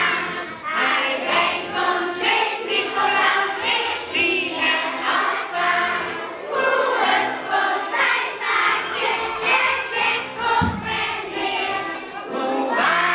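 A group of children singing a Sinterklaas song together.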